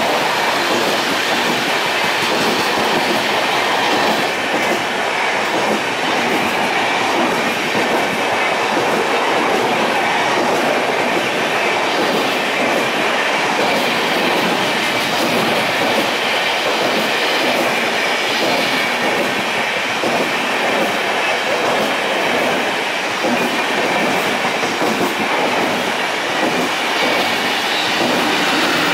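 Coaches of a long passenger train rolling past at close range: a steady rumble of wheels running on the rails.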